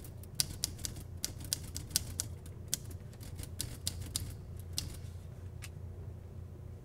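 Typewriter keys clacking, a sound effect: about eighteen irregular strikes, a few a second, over roughly five seconds, and they stop about a second before the end. A steady low hum lies underneath.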